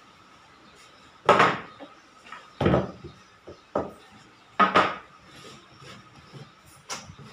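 Knocks and clatter of a car air-conditioning evaporator and blower housing of black plastic being set down and moved about on a workbench, with a plastic tool case handled beside it: about five separate knocks, the loudest a little over a second in and again near the middle.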